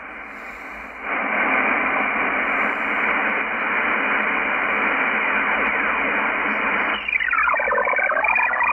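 Shortwave receiver audio from a Yaesu FTdx10 in upper sideband as it is tuned. A loud, steady hiss comes up about a second in. About seven seconds in, a multi-tone digital data signal slides down in pitch as it is tuned in and settles into a stack of steady, pulsing tones, which the operator takes for one of the Link-type data-link modes that MultiPSK can decode.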